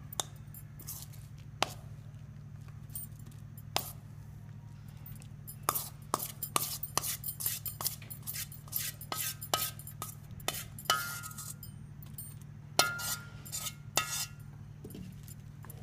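A utensil knocking and scraping against a bowl and container as a sticky coconut and condensed-milk mixture is transferred, giving irregular clinks and knocks, some briefly ringing, thickest from about six seconds in. A low steady hum runs underneath.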